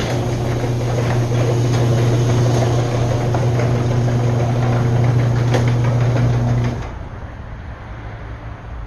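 Electric garage door opener raising a sectional garage door: a steady motor hum with rattling clicks, which cuts off suddenly about seven seconds in as the door finishes opening.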